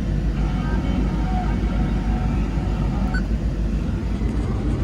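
Caterpillar 329E excavator's diesel engine running steadily at idle, heard from inside the operator's cab, a low even rumble with a few faint short tones over it.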